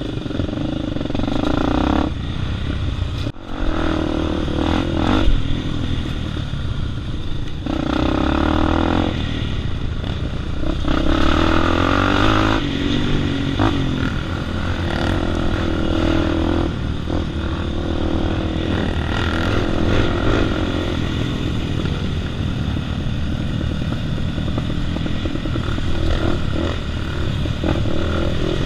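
Trail motorcycle engine running as it rides a dirt track, its pitch rising and falling with the throttle, heard from the rider's own bike. There is a brief dropout about three seconds in.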